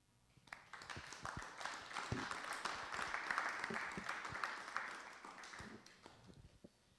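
Audience and panel applauding, swelling about a second in and dying away near the end.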